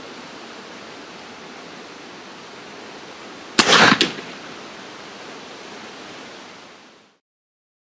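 A pneumatic air rifle firing one shot: a sharp, loud report a little past halfway, followed within half a second by a second crack. Under it a steady outdoor hiss that cuts off near the end.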